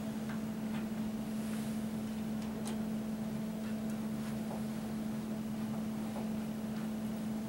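Steady electrical hum of room tone, with a few faint ticks and scrapes from a hand Phillips screwdriver turning screws into the wooden shelf.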